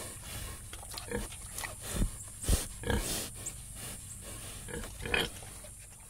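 Domestic pigs grunting in short, irregular grunts. The loudest cluster comes about two to three seconds in, with another strong grunt near the end.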